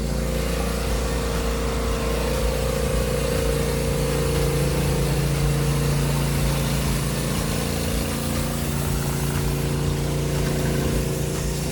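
Portable bandsaw sawmill's engine running steadily at an even pitch.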